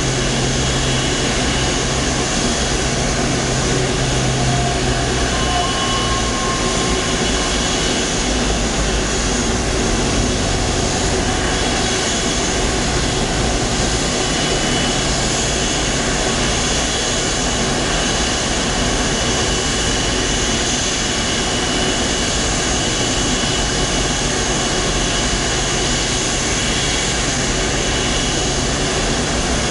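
Steady jet whine and rumble from an Airbus A330 during pushback, with several high steady tones over a continuous roar. A low hum underneath fades out about five seconds in.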